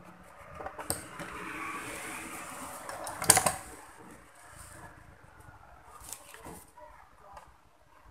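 Handling noise from a TV circuit board and multimeter test probes: a click about a second in, a stretch of rustling, then a sharp knock about three seconds in, the loudest sound, followed by a few faint clicks.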